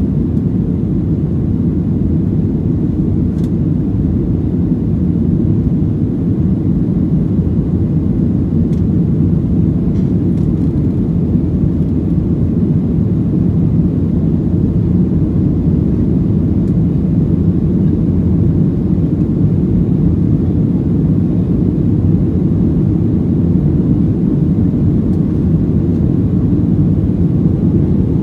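Boeing 737-700 jet engines (CFM56-7B turbofans) at climb power just after liftoff, with airflow, heard inside the cabin as a steady low rumble.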